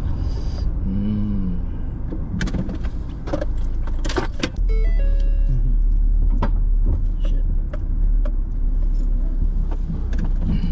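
Car cabin noise as the car rolls slowly through a parking lot: a steady low rumble with scattered clicks and rattles. About four and a half seconds in, the rumble suddenly grows louder.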